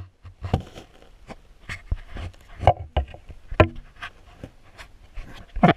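Irregular knocks, clicks and scrapes from a GoPro in its waterproof housing being moved underwater beneath river ice, bumping against the ice and stones. The loudest knock comes near the end.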